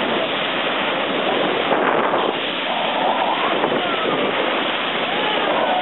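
Steady rush of water along a moving boat's hull as the bow cuts through the water, mixed with wind noise on the microphone.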